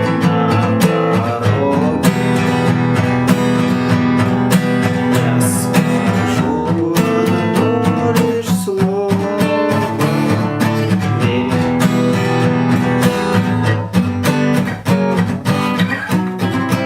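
Acoustic guitar strummed in a steady rhythm using the 'стук' technique, with chords broken up by regular percussive muted strikes on the strings.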